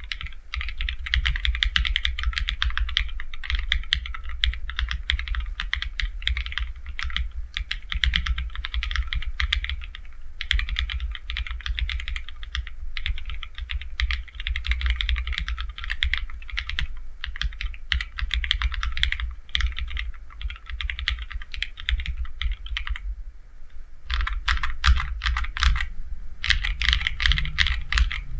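Typing on an AKKO ACR Top 40 40% keyboard kit with AKKO CS Snow Blue Grey linear switches and double-shot PBT MDA-profile keycaps: fast, continuous keystrokes, with short pauses about 23 and 26 seconds in.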